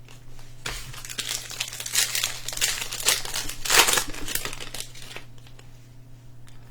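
Plastic foil wrapper of a Panini Mosaic football card pack being torn open and crinkled. It starts about a second in, is loudest near four seconds, and dies away about five seconds in.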